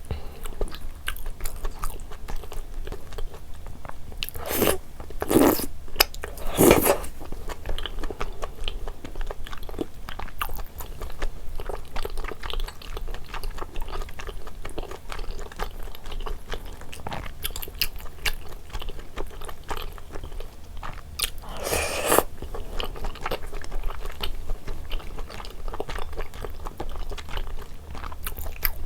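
Close-miked mukbang eating sounds: a person chewing rosé jjimdak and its glass noodles, with wet mouth clicks throughout and a few louder bites, around five to seven seconds in and again past twenty seconds.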